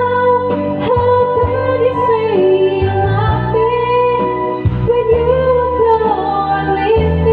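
A woman singing karaoke into a microphone over a backing track, amplified through a large loudspeaker cabinet. She holds long notes that bend and glide between pitches.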